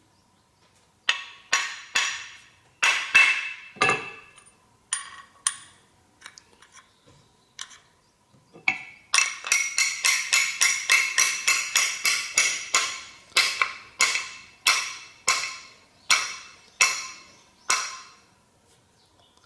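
Hammer tapping on a wooden hand plane to set its freshly sharpened blade: sharp, ringing strikes, a few spaced ones, then a quick run of them, slowing again near the end.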